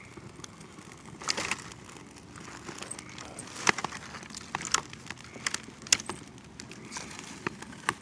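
Freshly lit campfire of birch bark and paper under a wood pile crackling, with irregular sharp snaps.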